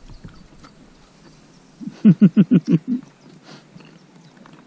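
A person laughing: a quick, loud run of about seven short 'ha' sounds, each dropping in pitch, about two seconds in. A few faint light clicks come before it.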